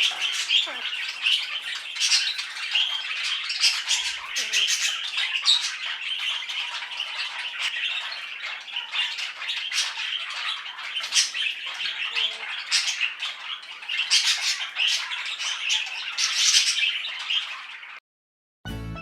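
Pet birds chattering and squawking continuously in rapid, high-pitched calls. The chatter cuts off about 18 seconds in, and music starts just before the end.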